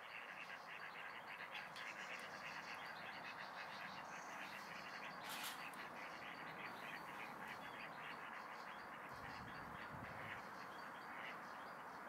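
Faint outdoor birdsong: small birds singing and chattering in a dense run of quick high notes. A brief sharper sound comes about five seconds in, and a low rumble near the end.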